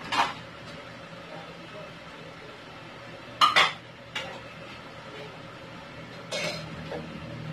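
Dishes being washed by hand at a sink: a few clinks and clatters of dishware and utensils knocking together, the loudest a quick double clatter about halfway through.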